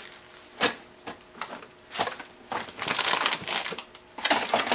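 Packaging being handled: irregular crinkling and rustling with a few light knocks, densest for about a second and a half from the middle on.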